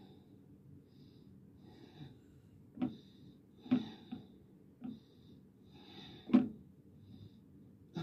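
A person breathing heavily through the nose, close to the microphone, while working a plastic glue syringe against a clear plastic jar. A few sharp plastic clicks sound over the breathing, the loudest about six seconds in.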